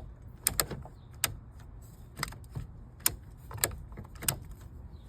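About seven sharp clicks and light knocks at uneven intervals, from parts being handled and fitted while reassembling a car's steering column.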